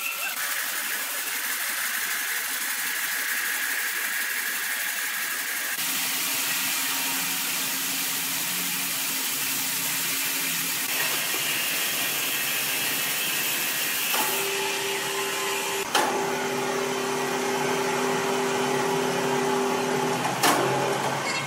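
Large horizontal band sawmill running, its blade sawing through a big timber block with a steady hiss. The sound changes abruptly a few times, and in the later part a steady motor hum comes through, with two sharp knocks near the end.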